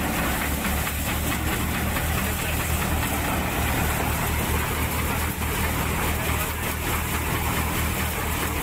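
Prakash multi-crop thresher running steadily, with the low, even throb of the engine that drives it.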